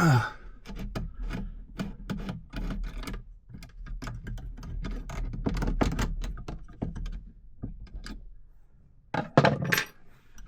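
Irregular knocks, clicks and thunks of hand work with a tool on a tight-fitting, screwed-in panel part, with a louder knock about nine seconds in.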